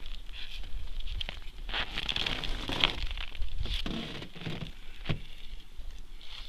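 Rustling and crackling of a winter suit and gloves as an angler handles a small caught perch in his hands, with scattered small clicks.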